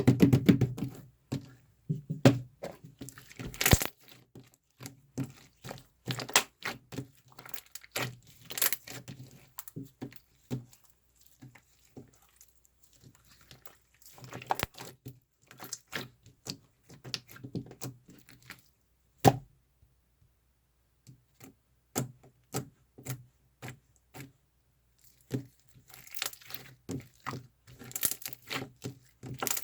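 Irregular clicks, taps and short crinkling rustles of small objects being handled close by, with a brief quiet spell past the middle.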